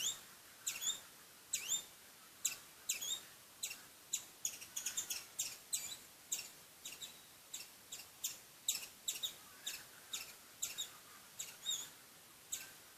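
Squirrel calling: a steady run of short, sharp, high-pitched chirps, about two to three a second, some with a quick bend in pitch.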